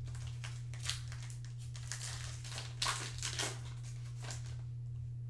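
Plastic wrapper of a football trading card pack crinkling and tearing as it is opened by hand, in a run of crackles that is loudest about three seconds in. A steady low hum sits underneath.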